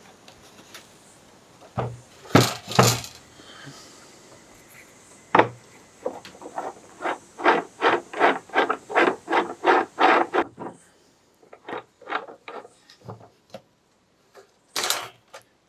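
An adjustable leg being screwed by hand onto the leg bolt of a wooden Paulownia hive stand. A few wooden knocks come first, then a steady run of short rubbing strokes, about three a second, as the part is turned on the thread, then scattered clicks and one louder knock near the end.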